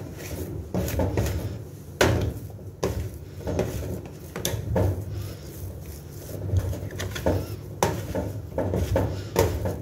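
Plastic dough scraper and hands working a soft bread dough on a work surface: irregular knocks, taps and scrapes as the scraper strikes and slides on the surface, with dull thuds of the dough being pressed.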